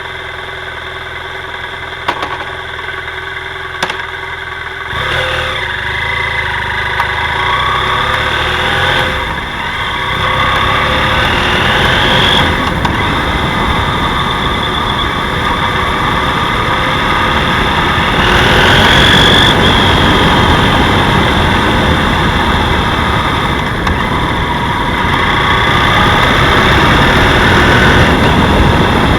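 BMW F 800 GS parallel-twin engine idling, then revved up and let back down several times, with a knocking noise whose cause the owner does not know.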